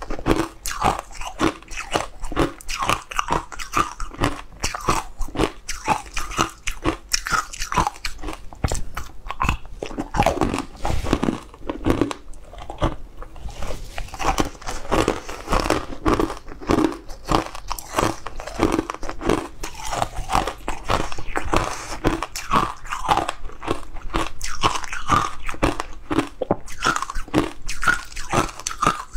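Close-miked crunching and chewing of a dry, crumbly brown food, a rapid, continuous run of crisp crunches.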